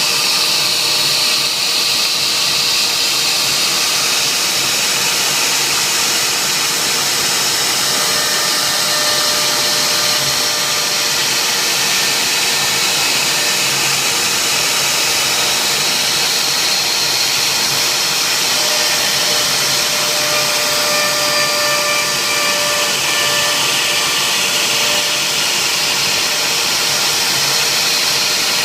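CNC router spindle running steadily while engraving a wooden signature board: an even high hiss with a steady whine through it.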